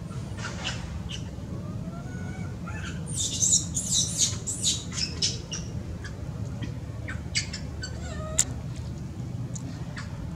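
A burst of high-pitched animal squeaks and squeals about three seconds in, lasting a couple of seconds, with a few sharp chirps later, over a steady low background rumble.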